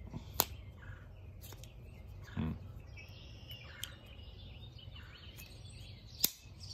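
Cold Steel Rajah II folding knife being worked by hand, its blade snapping shut and open with two sharp clicks, one about half a second in and one near the end, and a few lighter clicks between; the new knife's action is still stiff. Faint bird chirps behind.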